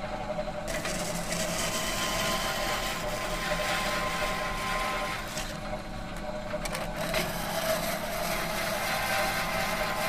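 Metalworking machinery running steadily, with a low hum and several held tones under a hiss. The hiss drops away briefly at the very start and again for about a second and a half around six seconds in.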